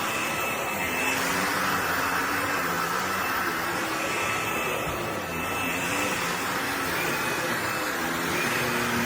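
Bissell PowerClean 200W cordless stick vacuum running steadily, a constant rushing whine whose low hum shifts slightly in pitch.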